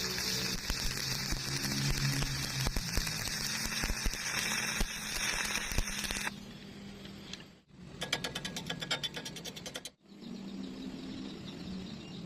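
Electric welding arc crackling and sizzling, with a low hum underneath, for about six seconds; then, after a cut, a rapid run of sharp clicks, about ten a second, for two seconds.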